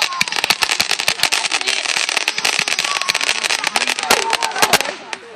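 Fireworks crackling: a dense, rapid run of small sharp cracks and pops that thins out near the end.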